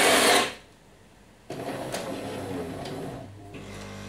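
Jura ENA 8 bean-to-cup coffee machine working through a drink cycle: its grinder cuts off about half a second in. After a second of near quiet, an internal motor runs for about two seconds. Then a steady, lower hum sets in as the machine goes on to brew the espresso.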